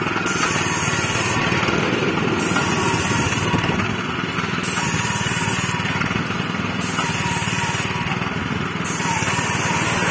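Small petrol engine on a twin-gun cold-paint road-marking machine running steadily while the machine is pushed along spraying a line.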